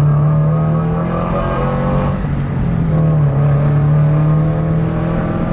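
2022 Toyota GR86's 2.4-litre flat-four engine droning through an aftermarket JDL exhaust under way, heard from inside the cabin with the windows down; loud and deep. The drone drops away about two seconds in and comes back a second later, climbing slightly.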